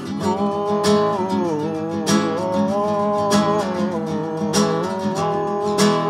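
A man singing long held, sliding notes over a nylon-string classical guitar strummed in a slow, steady rhythm; the voice comes in just after the start.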